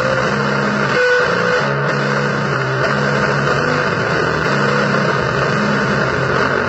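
Harsh distorted noise music: a dense, loud wash of hiss over a repeating low guitar-like riff of short held chords that start and stop.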